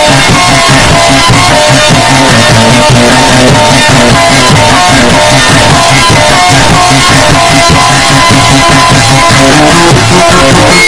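Loud rock music with guitar and drums, dense and continuous with a steady beat.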